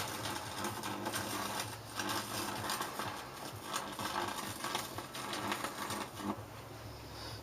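Ballasted microwave oven transformer humming while its high-voltage arc crackles and buzzes across a circuit board. The crackling stops about six seconds in, leaving a quieter hum.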